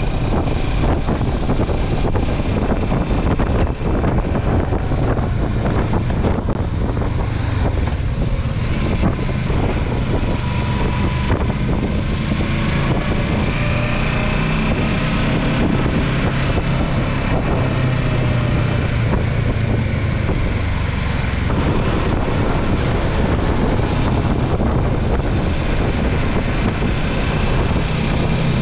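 Steady low rumble with wind buffeting the microphone, and faint wavering tones drifting in and out over the middle of the stretch.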